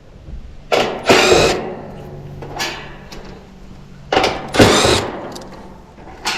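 Cordless drill driving out sheet-metal screws, two short runs of about a second each with the motor pitch gliding as it spins, then a short click near the end.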